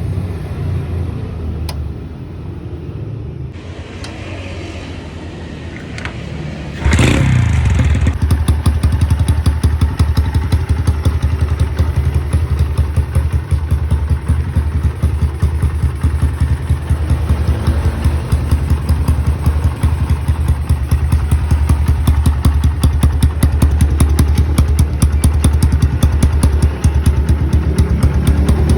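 Honda Karisma motorcycle engine, bored up with a Honda Sonic piston, starts about seven seconds in and then runs loudly and steadily with a rapid, even firing beat.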